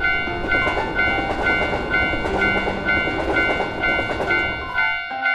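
Japanese railroad crossing bell sound effect ringing its repeating "kan-kan" ding at about three strikes a second, while a train passes with a rumbling rattle that ends near the end.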